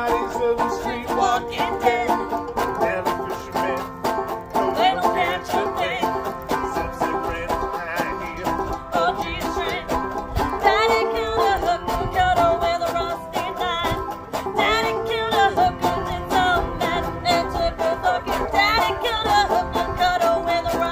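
Bluegrass-style string band playing a fast instrumental passage, led by rapid banjo picking over other plucked strings in a steady rhythm.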